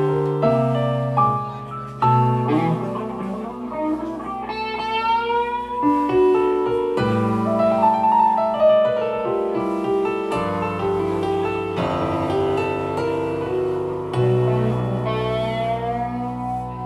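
Live rock band playing an instrumental passage: keyboard chords under electric guitar holding long notes that bend upward in pitch, twice.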